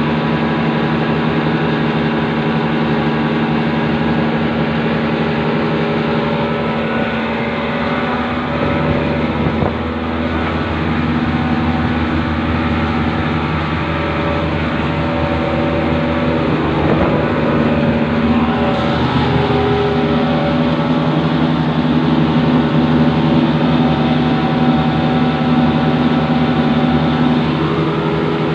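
Car engine running steadily, its pitch wavering a little in the middle and growing slightly louder in the second half.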